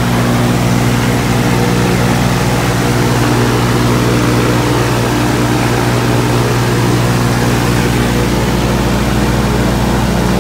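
Viking aircraft engine and propeller running steadily at constant speed on the ground, the engine kept running off its battery until the battery dies.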